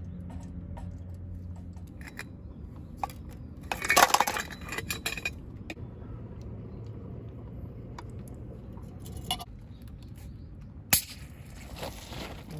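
Small clinks and knocks of metal camping gear being handled on an aluminium table: a hurricane lantern, a steel flask and a titanium mug. There is a louder, noisy burst lasting about a second and a half around four seconds in, and a sharp click near the end.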